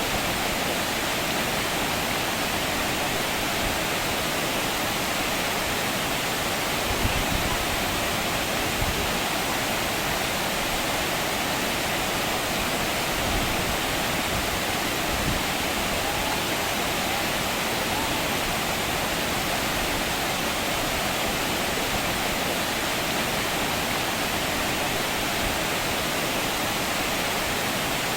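Waterfall roaring steadily, an even, unbroken rush of falling water.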